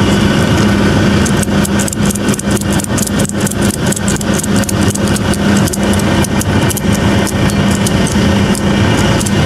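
Manitou telehandler's diesel engine idling steadily, with a run of sharp metallic clicks of several per second starting about a second and a half in.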